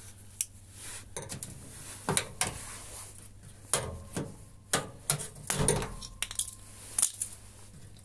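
Sharp metallic clicks and clinks of a folding multitool being handled against a washing machine's sheet-metal back panel while a plastic plug is pried out of it. There are about seven separate clicks, unevenly spaced.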